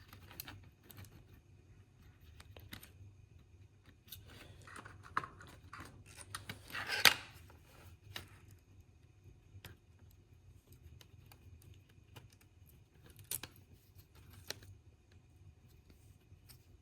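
Small plastic handrails of a model locomotive being pried and pulled off by hand and with a small tool: scattered light clicks and scrapes, with the loudest snap about seven seconds in and a few more clicks near the end.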